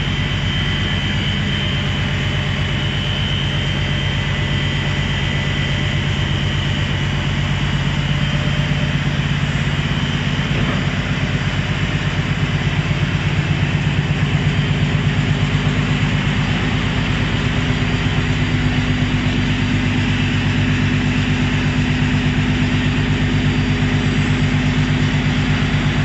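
Steady mechanical hum of a running motor or engine, with several held tones over a constant noise, growing a little louder about halfway through.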